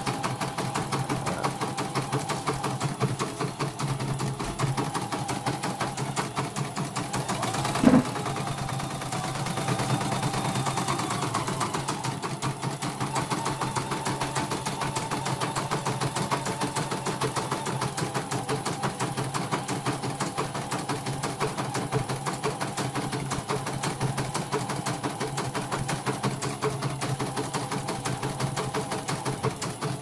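Computerized embroidery machine stitching, with a rapid, even run of needle strokes. There is one sharp knock about 8 seconds in.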